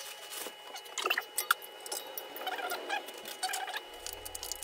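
Plastic packaging crinkling and rustling, with small clicks and knocks, as flat-packed office chair parts are handled and searched through.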